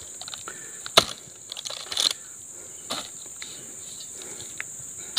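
Oil palm fruit bunches being speared with a metal loading pole and pitched up onto a truck: sharp thuds about once a second, the loudest about a second in, over a steady high drone of insects.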